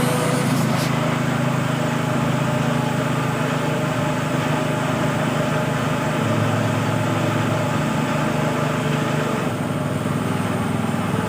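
A small engine running steadily at an even speed; its low note strengthens slightly about six seconds in.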